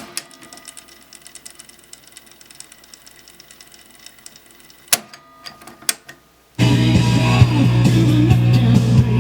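Cassette tape playback of rock music on a Pioneer CT-F750 deck stops abruptly, leaving several seconds of faint ticking from the mechanism. A few sharp clicks of the transport keys come about five to six seconds in, and music playback starts again just after.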